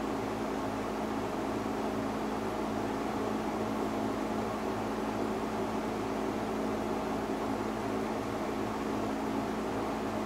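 A 1987 Robeson 20-inch reversible box fan, model 2385, running steadily: an even motor hum with a rush of moving air from the blades.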